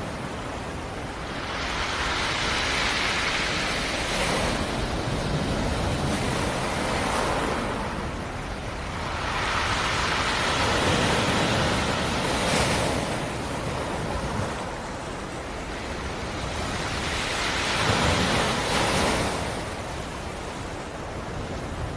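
Black Sea surf: waves rolling in and breaking, a steady rush of water that swells and eases every few seconds.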